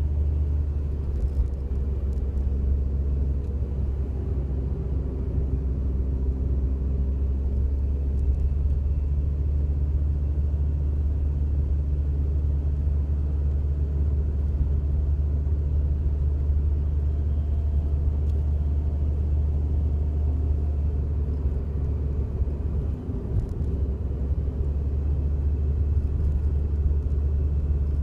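Steady engine and road rumble heard from inside the cabin of a Daihatsu Wake kei car while it runs. Under it is a faint buzzing from around and below the steering wheel that trembles with each vibration of the car: the abnormal noise the owner is chasing.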